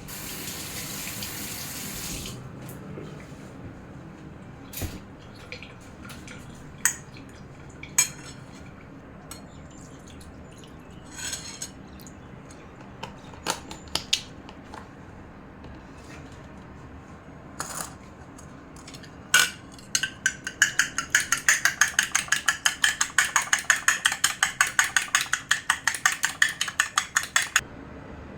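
Kitchen tap running briefly, then scattered clinks and knocks of dishes and utensils. About two-thirds in, a metal utensil clinks rapidly and evenly against a bowl, about six strokes a second for some seven seconds, like eggs being beaten for french toast.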